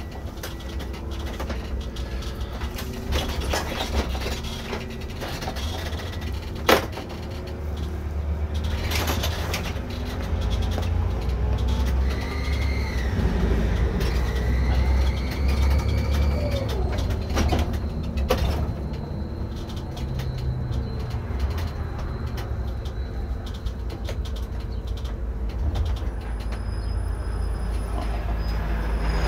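Irisbus Récréo II coach under way, heard from the driver's seat: a steady low engine and drivetrain rumble whose pitch rises and falls a few times, with cabin rattles and a sharp click about seven seconds in.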